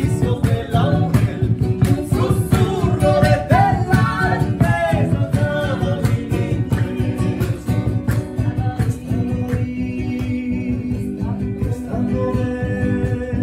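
Live Latin American folk music: a classical guitar and a hand-held drum beaten with a stick keep a steady rhythm under a singing voice that glides between notes in the first half. The voice turns to steadier held notes in the second half.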